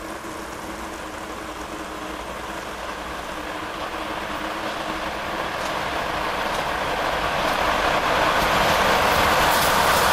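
ChS7 DC electric locomotive and its express passenger train approaching at speed. The noise of wheels on rails grows steadily louder as the train nears, with faint clicks in the second half.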